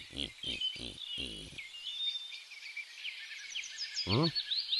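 Wildlife ambience of chirping birds and insects, with a quick run of short pitched calls in the first second and a half and another single call about four seconds in.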